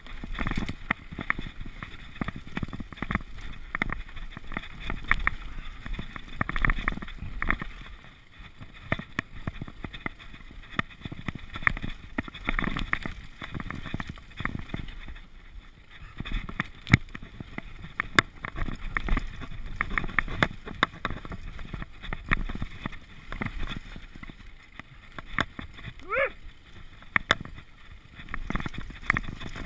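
Mountain bike descending a dirt forest trail: tyres rolling and skidding over dirt and roots, with frequent rattles and knocks from the bike as it bounces. A brief rising squeak comes near the end.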